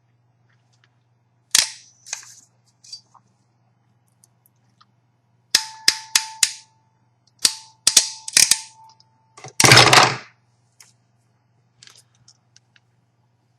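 Ratchet crimp tool clicking as it squeezes a Cat5 cable connector onto a wire pair: a few sharp clicks, then two runs of rapid clicks, and a louder, longer snap near the end.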